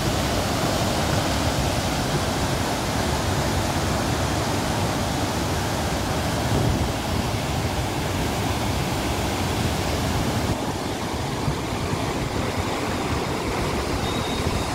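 Tons River in flood, its muddy, swollen water rushing through a gorge with a steady, loud roar. The high hiss thins a little about two-thirds of the way through.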